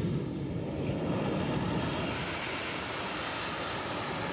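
Boeing 737 jet airliner's engines running as it rolls along the runway just after landing: a steady, loud rushing noise.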